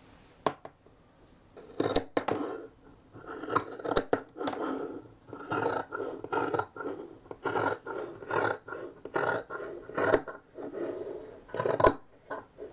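Fabric scissors cutting across a pair of wool trousers, a long run of snips, about two a second, starting about two seconds in.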